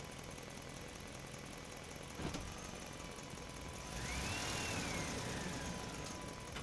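Truck engine running in a parking structure, with one sharp knock about two seconds in. Near the end it grows louder for a couple of seconds, and a single squeal rises and then falls.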